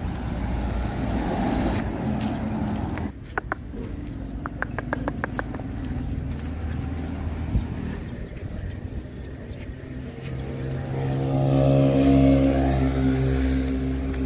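A motor vehicle engine running close by, swelling into a loud, steady hum with a clear pitch about ten seconds in. Earlier comes a quick run of light clicks.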